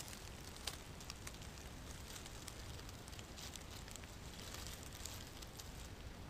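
Faint crackle and rustle of dry fallen leaves, with scattered small ticks over a low, steady hiss.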